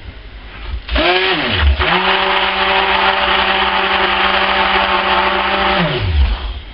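Stick blender running in a plastic tub of cold-process soap batter, emulsifying the oils and lye. The motor spins up with a rising whine about a second in, runs steady for about four seconds, then winds down and stops near the end.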